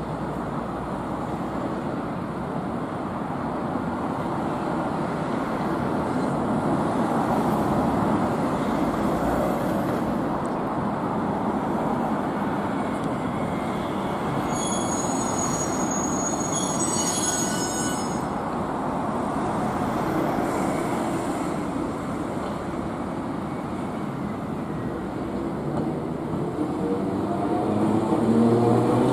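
An old Iyotetsu Moha 2000-type streetcar (No. 2004) running slowly along street track amid a steady rumble of road traffic. About halfway through, its wheels squeal high and thin against the rails for a few seconds. The running noise grows louder near the end as the car comes up close.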